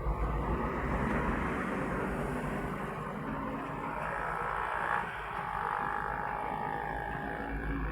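Steady roadside traffic noise: vehicles running past with a low rumble and an even wash of road noise.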